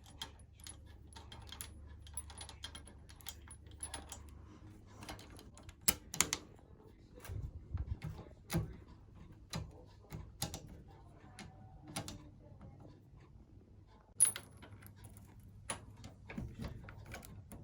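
Bicycle tools and small metal parts being handled during repair work: irregular light clicks and taps, with a few sharper knocks, the loudest about six and fourteen seconds in.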